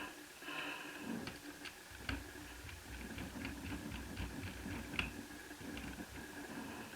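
Small clicks, ticks and light scraping of a netbook's internal parts being handled with hands and tools while the Wi-Fi card is taken out, with one sharper click about five seconds in.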